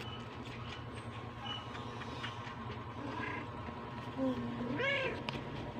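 Steady low rumbling, as of a cat purring close to the microphone while kittens suckle on her. About four seconds in, a short rising-then-falling call cuts in briefly.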